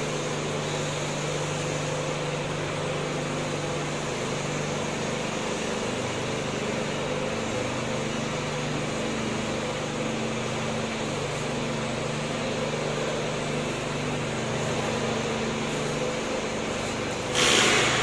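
Steady mechanical hum with a constant hiss, holding a few low droning tones. Near the end comes a brief, louder rush of noise.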